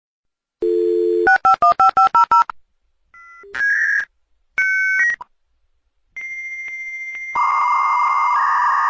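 Dial-up modem connecting over a phone line. First a steady dial tone, then seven quick touch-tone dialing beeps, then a couple of short tone bursts. After that comes a steady high answer tone with regular clicks, which gives way about seven seconds in to a loud hissing screech.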